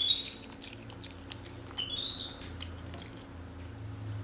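Capuchin monkey chewing spaghetti with lip-smacking clicks, and giving two short, high rising chirps, one at the start and one about two seconds in.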